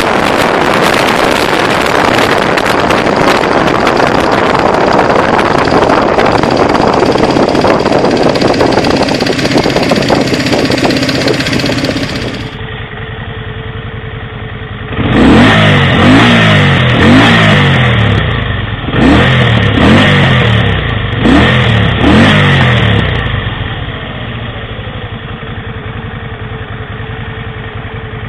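Kawasaki Vulcan VN750 V-twin motorcycle engine. For the first twelve seconds or so it runs hard under a heavy rush of wind noise. Then it idles, is blipped sharply about six times in quick succession, each rev falling back, and settles to a steady idle.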